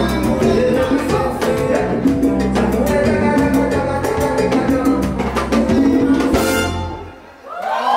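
Salsa band playing, with horns, congas, bass and drum kit over a steady beat. The band ends on a bright final hit about six and a half seconds in, the music drops away, and a voice starts just before the end.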